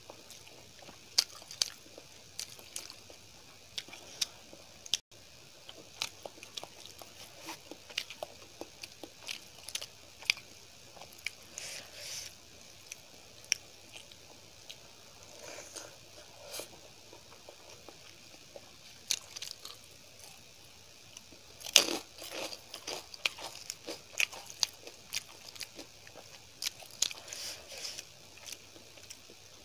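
Close-miked eating of rice with paneer masala curry and crushed papad: irregular sharp crunches and chewing, with the loudest cluster of crunches about three quarters of the way through. Soft wet squishes come from fingers mixing rice and curry on a steel plate.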